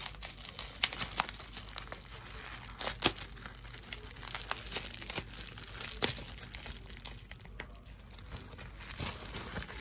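Plastic bubble wrap crinkling and crackling in the hands as it is unwrapped from a small item, a run of irregular sharp crackles.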